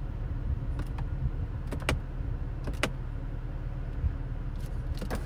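2022 BMW X3M Competition, with its twin-turbocharged 3.0 L six-cylinder, on the move, heard as a steady low rumble from inside the cabin. A few scattered sharp clicks or ticks come through it.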